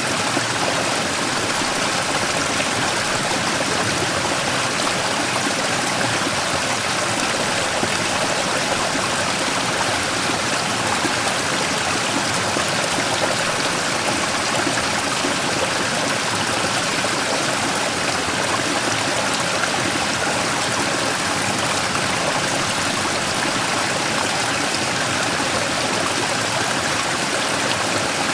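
Mountain stream water flowing and splashing over a large rock in a steady, unbroken rush.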